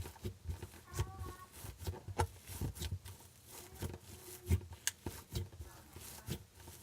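Slime with glitter and beads mixed in being kneaded and squeezed by hand: irregular sticky clicks and pops.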